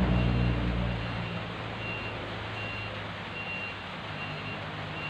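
A truck engine running, fading away over about the first second, with short high beeps repeating at uneven gaps throughout, like a reversing alarm.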